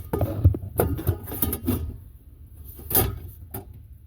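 Handling noises as an air filter is worked into an HVAC unit: a string of knocks and scrapes, the loudest about three seconds in.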